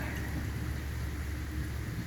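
Steady rain falling, an even hiss with a low, constant rumble underneath.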